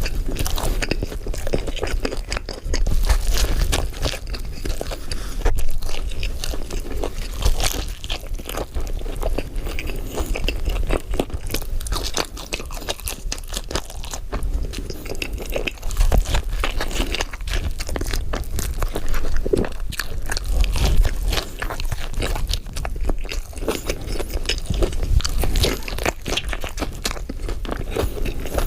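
Close-miked eating: big bites crunching into burgers and fast food, then chewing, with wet crackles and crunches coming irregularly and densely throughout.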